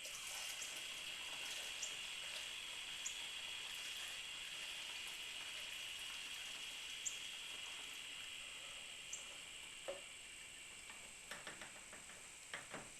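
Old two-stroke gasoline pouring through a filter into a jug: a steady liquid hiss that slowly weakens, with a few light clicks near the end.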